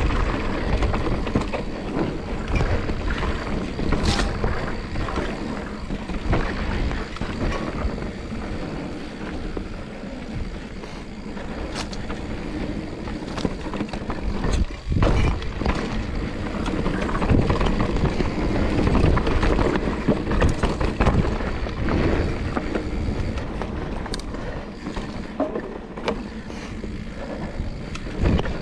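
Mountain bike riding down a dirt forest trail: a steady rumble of tyres rolling over dirt and wind on the camera microphone, with the bike rattling and sharp knocks now and then as it hits bumps.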